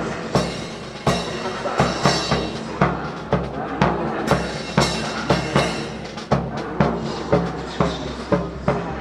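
Music with a steady drum-kit beat: bass and snare drum hits about two to three a second over a low sustained accompaniment.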